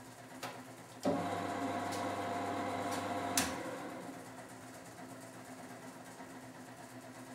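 Miele W 425 front-loading washing machine turning its drum in the wash rhythm: the drum motor starts abruptly about a second in and hums steadily for a couple of seconds, then a sharp click and the drum slows to a stop, leaving a quieter pause.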